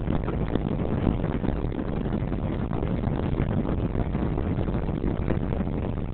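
Car driving on a country road, heard from inside the cabin: a steady rumble of engine and tyre noise.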